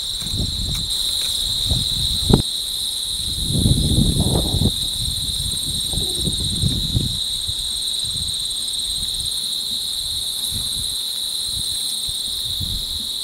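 Steady insect chorus: one continuous high buzz with a fainter, rapidly pulsing trill above it. Low rumbles and thumps come and go in the first half.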